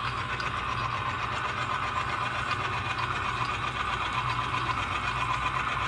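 A motor running steadily, a constant drone with a low hum and a bright noisy band above it, unchanging throughout.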